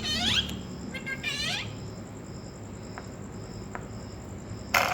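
Pet parrot giving two short chirping calls in the first second and a half, then a brief harsh, loud burst of noise near the end.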